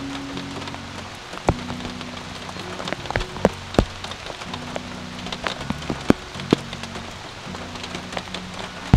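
Rain falling steadily, with scattered sharp taps of drops landing close by. Faint background music with held low notes underneath.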